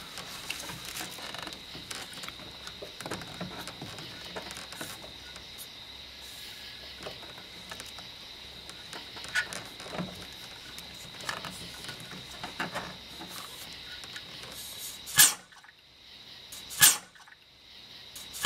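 Hands working the vacuum hose and check valve off a 2004 Ford F-150's brake booster: scratchy rubbing and small clicks of rubber and plastic, then two sharp pops near the end, each about a second and a half apart.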